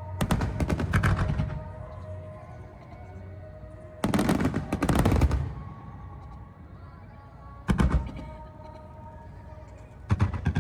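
Volleys of fireworks exploding overhead, each a quick string of bangs, four volleys in all, with music playing underneath.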